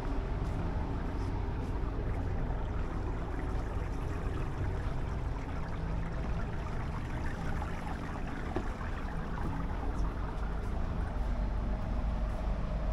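Steady low hum and rumble of an expedition ship's machinery, heard on its open top deck.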